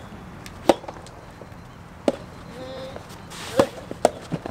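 Sharp knocks of a soft tennis rally: rackets strike the rubber ball about every second and a half, with a few lighter knocks near the end.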